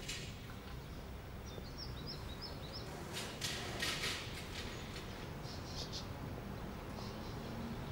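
Outdoor street ambience with a steady low background and small birds chirping. A few short noisy sounds are heard about three to four seconds in.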